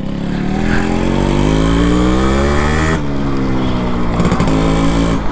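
A 1989 Yamaha RX100's 98 cc two-stroke engine revving up, its pitch climbing steadily. About three seconds in it drops sharply, then starts climbing again.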